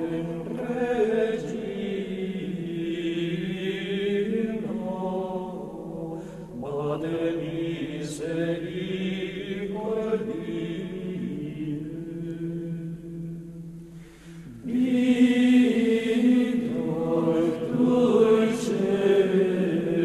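Gregorian chant: slow sung phrases in low voices, with a short break about fourteen seconds in before the next phrase comes in louder.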